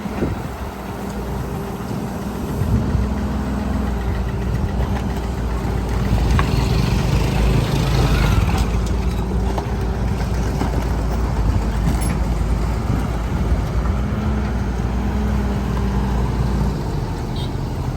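Hydraulic excavator's diesel engine running steadily, its note rising as it works harder from about six seconds in, then easing off again.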